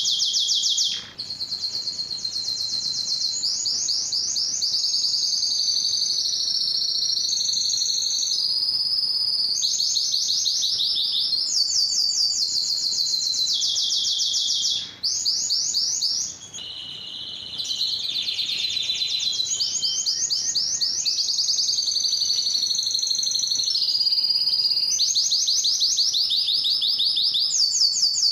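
Male domestic canary singing a long, near-continuous song made of fast trills, each a rapid run of the same high note repeated, switching from one trill to the next every second or two. There are brief breaks about a second in and around the middle, followed by a softer, lower passage.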